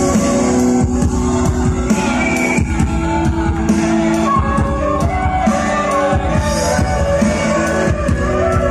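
Live amplified stage music: a bamboo flute (bansuri) playing a melody over keyboard and drums, with shouts from the crowd.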